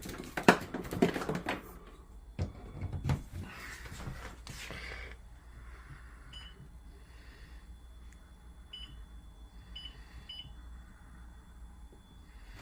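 Clunks and knocks of handling, then a few short high electronic beeps at uneven intervals, typical of a microwave oven's keypad being pressed.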